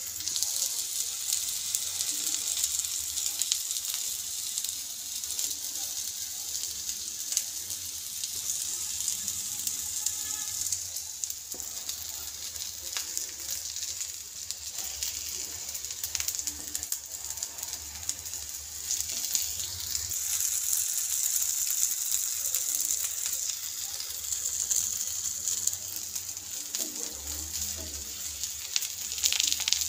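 Stuffed capsicum rings shallow-frying in oil on a nonstick tawa: a steady sizzling hiss with fine crackling pops.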